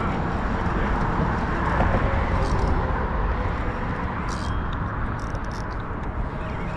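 Steady rumble of road traffic passing over the bridge, swelling a little about two seconds in.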